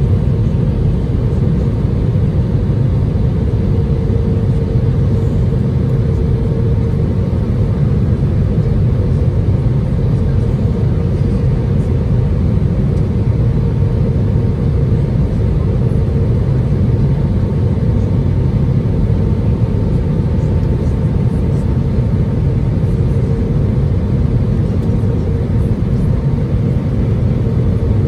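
Steady cabin noise inside an Airbus A319 on approach, heard from a seat beside the wing: a deep rumble from the engines and airflow, with a faint steady hum over it.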